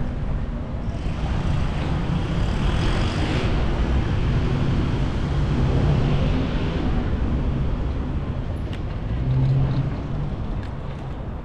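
Road traffic: motor vehicles passing, with tyre and engine noise swelling over the first few seconds and then fading. A deeper engine hum rises briefly near the end.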